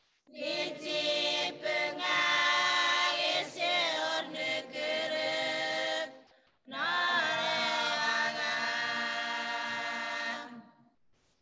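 A small group of mostly women singing unaccompanied in Chuukese. They sing two long phrases with a short breath between them about six seconds in.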